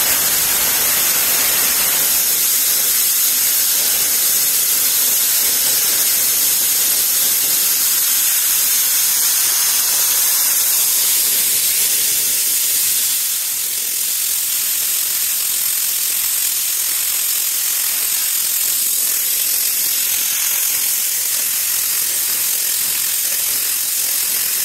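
Jianken ATC spindle on a CNC router running at high speed while a 1/32-inch two-flute endmill cuts two-ply acrylic: a loud, steady hiss with a faint high whine. The level drops slightly about halfway through.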